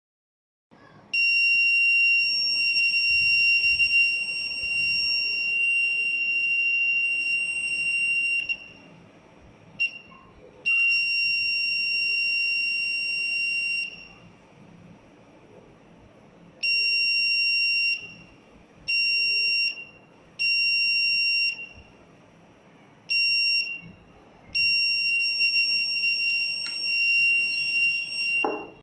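Electronic buzzer of a homemade LDR light-beam alarm sounding a steady high-pitched beep. It runs for about seven seconds, then stops and restarts in shorter spells of one to four seconds: the alarm going off whenever the laser beam on the light sensor is interrupted.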